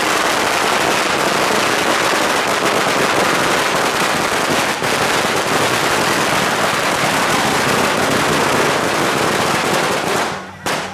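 A long string of firecrackers going off in a dense, unbroken crackle. It stops suddenly about ten seconds in, and one last bang follows just before the end.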